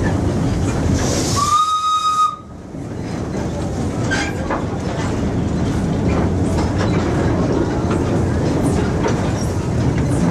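Wood-fired steam locomotive running with a steady rumble and rattle from the train. About a second and a half in there is one short steam whistle blast, a single steady tone lasting about a second.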